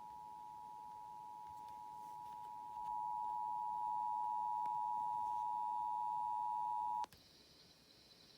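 Emergency Alert System attention signal: the steady two-tone alert of 853 Hz and 960 Hz played together. It gets louder about three seconds in and cuts off with a click about seven seconds in.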